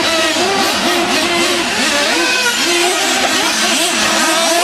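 Several nitro RC monster trucks racing, their small two-stroke glow engines revving up and down over and over, the rising and falling pitches overlapping.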